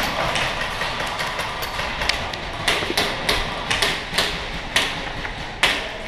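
Airsoft guns firing single shots in a large warehouse hall: about eight sharp cracks at irregular intervals, beginning about two seconds in, over a steady background hiss.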